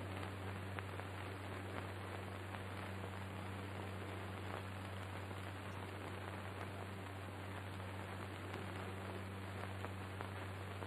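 Steady hiss with a constant low hum and a few faint crackles: the background noise of an old film soundtrack, with no music or dialogue.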